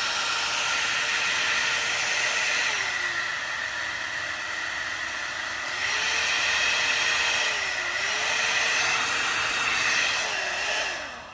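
Hot air brush running: a steady rush of blown air over a motor whine. About three seconds in the motor drops to a lower pitch and runs quieter for a few seconds, then comes back up, dips briefly twice more, and switches off near the end.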